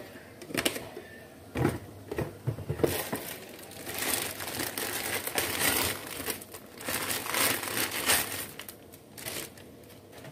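Plastic bag of dried egg noodles crinkling and rustling while the noodle nests are shaken and pulled out of it, in a dense, irregular crackle that dies down near the end.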